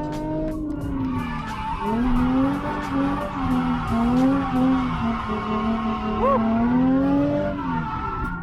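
Nissan 350Z's V6 engine revving up and down through a drift, with its tyres squealing and skidding.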